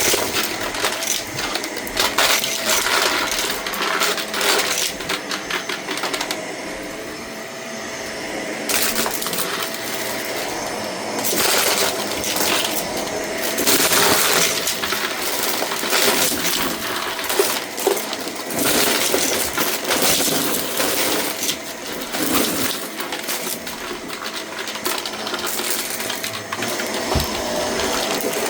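Shark vacuum cleaner running steadily while picking up debris that clicks and rattles as it is sucked up.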